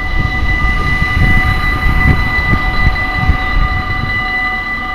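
Level-crossing warning bell ringing steadily while the barriers come down, signalling an approaching train. A gusty low rumble of wind on the microphone lies underneath.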